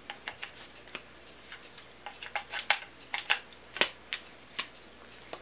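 Hands fiddling with a small card prop: a string of light, irregular clicks and taps, busier in the second half.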